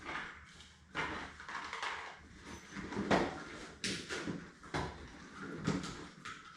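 Irregular knocks, clatter and scraping of hard objects being handled and moved about, like rummaging for a tool.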